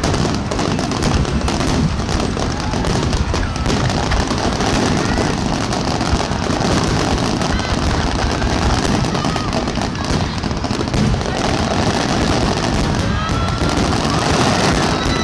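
Fireworks finale barrage: a dense, unbroken run of shell bursts and crackling, loud throughout, with a few faint whistling glides over it.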